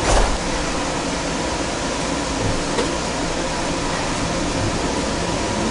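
Steady interior hum and hiss aboard a Kinkisharyo light rail car, with a brief low thump right at the start.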